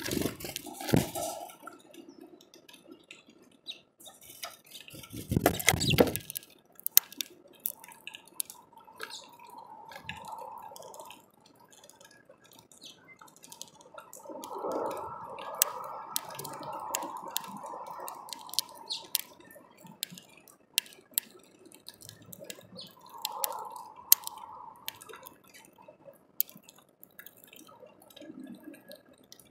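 Rain dripping on a plastic bird feeder: irregular sharp ticks scattered throughout, with a low thump about five seconds in.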